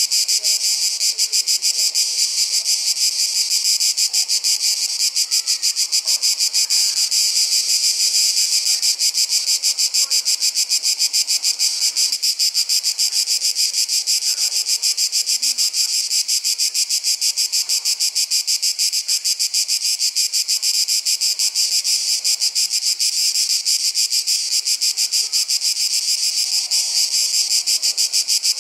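A loud, steady chorus of insects shrilling in a high-pitched, rapidly pulsing drone, typical of a hot summer day.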